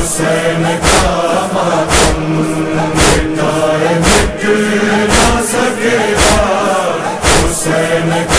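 Male chorus chanting a mournful noha in unison over a sustained hum, kept in time by a thump of chest-beating (matam) about once a second.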